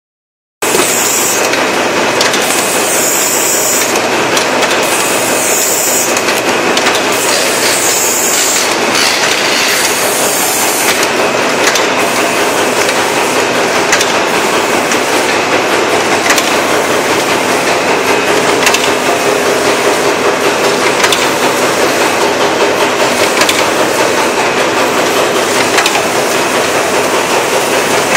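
Automatic wet-wipe packaging line running: a loud, continuous mechanical clatter from the conveyors and wrapping machine, with short bursts of hiss repeating in the first several seconds.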